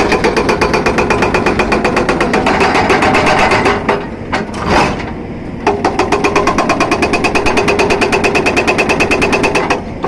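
Hydraulic breaker (rock hammer) on a Caterpillar 320D excavator hammering into rock, about ten blows a second. It stops for about two seconds in the middle, then resumes.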